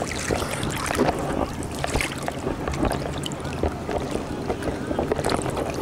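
Sea water lapping and splashing right at the microphone, which is held at the water's surface, with irregular small splashes and wind buffeting the microphone.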